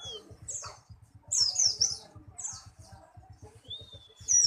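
White-eye (pleci buxtoni) singing: short groups of quick, high chirping notes, then near the end a long, steady, level whistle that ends in a burst of chirps.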